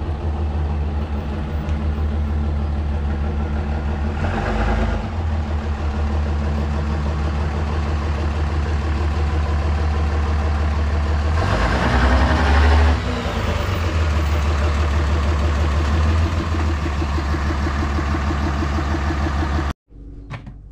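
Dodge Ram 3500 dually's Cummins diesel engine running steadily, with two louder stretches of rushing noise over it about four and twelve seconds in. The sound stops abruptly shortly before the end.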